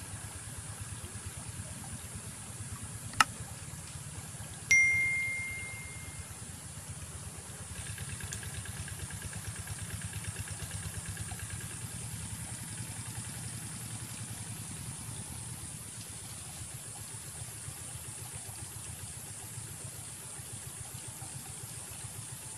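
A steady low engine-like hum with a fine rapid pulse runs throughout. A sharp click comes about three seconds in, and a short ringing tone follows a second and a half later, fading out over about a second and a half.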